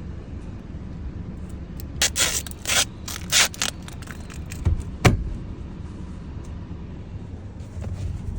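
Hands working a repair with adhesive tape, rubber and scissors: four short scraping rips, like tape pulled off the roll, about two to three and a half seconds in, then a single sharp knock about five seconds in, over a steady low rumble.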